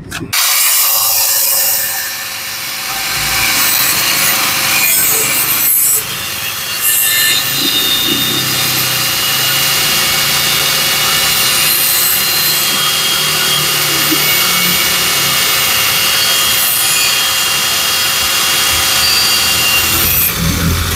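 Caowang CW1336 wall chaser with a 125 mm abrasive cut-off disc, grinding through steel with a steady motor whine under a harsh, hissing cut. It starts abruptly and runs on without a break. The machine's low blade speed makes more friction, so the cut goes slowly and not cleanly.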